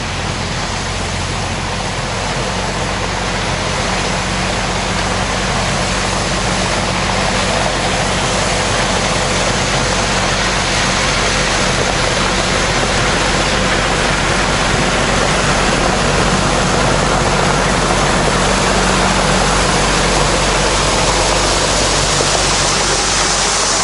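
RK37 compact tractor's diesel engine running steadily while it pulls a rear blade along a gravel drive, with a steady hiss of limestone gravel scraping under the blade and tyres. It grows louder as the tractor comes up and passes close by near the end.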